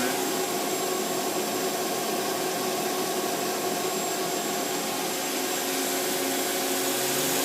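Spindle and 6-inch chuck of a Nakamura-Tome TMC 15 CNC lathe spinning at about 2,500 RPM: a steady mechanical whine over a broad rushing hiss, with several fixed tones.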